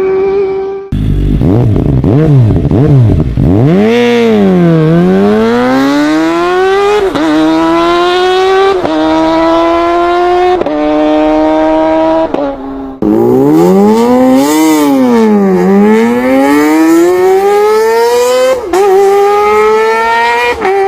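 Superbike engine accelerating hard through the gears. The pitch climbs steadily and drops back at each upshift, with a quick dip and re-rise of the revs before each run. The sound switches abruptly to a second, similar run about two thirds of the way through.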